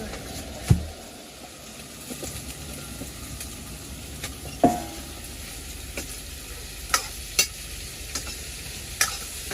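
Meat and vegetables sizzling steadily in a pan as they are stir-fried, with the cooking utensil knocking against the pan several times, one knock ringing briefly.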